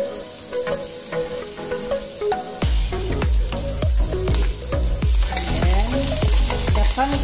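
Food sizzling in a frying pan as onion, garlic and pumpkin cubes are sautéed. About two and a half seconds in it gets louder, with repeated scraping strokes of a wooden spatula stirring.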